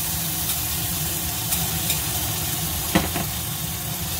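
Mushroom sauce sizzling steadily in a hot pan as it is poured in and stirred, with a few light clicks of a wire whisk and spoon against the pan, the sharpest about three seconds in.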